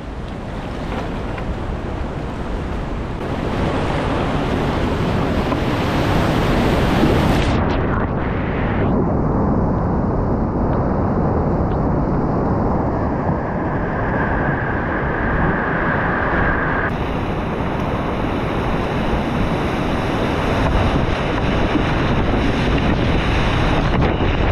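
River whitewater rushing in a steady, loud wash of water noise, with wind and spray buffeting the microphone. For several seconds in the middle the sound turns duller and muffled.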